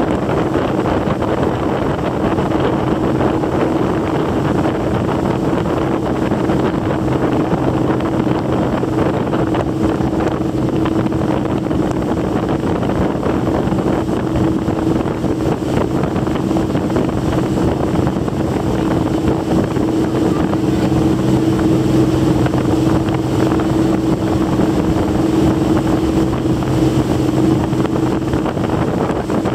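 Motorboat engine running at cruising speed with a steady drone, over the rush of water and spray along the hull and wind buffeting the microphone. About two-thirds of the way through, the engine note grows slightly louder and fuller.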